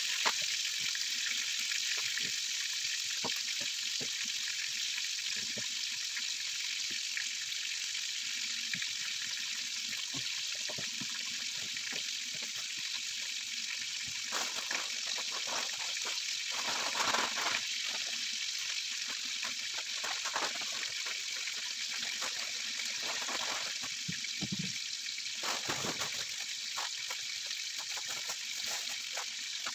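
Chicken pieces with garlic frying in butter in a pan: a steady sizzle with scattered crackles, and a few louder bursts midway and near the end.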